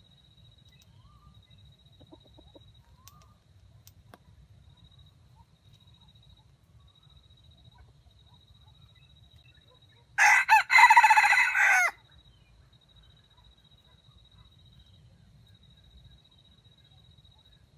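A red junglefowl rooster crowing once, loud and short, about ten seconds in. The crow opens with a couple of broken, stuttering notes before the main call.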